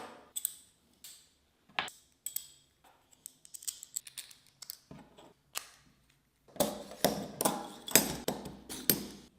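Light clicks and clinks of small hard parts being handled, scattered at first, then a quick run of clatter from about six and a half seconds in until just before the end.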